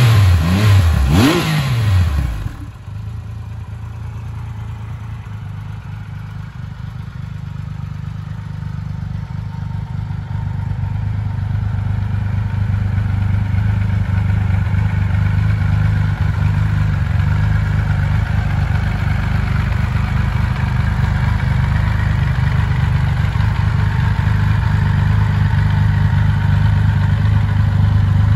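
Triumph Rocket 3 R's 2.5-litre three-cylinder engine blipped a few times in quick succession at the start, then settling to a steady idle that grows gradually louder.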